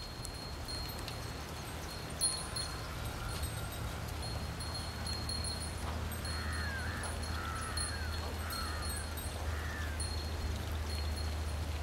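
A steady low rumble, the sound of a diesel locomotive still far off and approaching, under high repeated chirping. Around the middle, a bird gives a run of four or five swooping calls.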